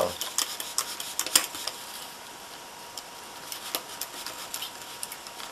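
A razor knife scraping and cutting through a thin wooden dowel, with scattered sharp clicks, the loudest about a second and a half in.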